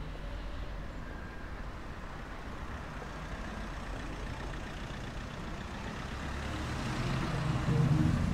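Road traffic passing steadily, with a large vehicle's engine growing louder near the end as it comes close.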